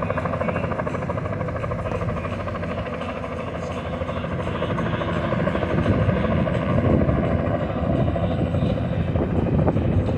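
Helicopter running close by, its rotor giving a steady rapid beating that grows louder about halfway through.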